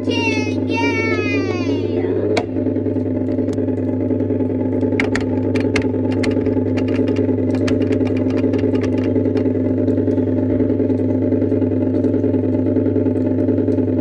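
Coin-operated motorbike kiddie ride playing a loud, steady motorbike engine drone through its speaker. A child's voice glides up and down in the first couple of seconds, and a run of sharp clicks comes around the middle.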